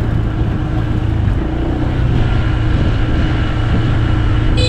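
Motorcycle engine running steadily under way, with a low, constant rumble. A brief high-pitched squeak sounds near the end.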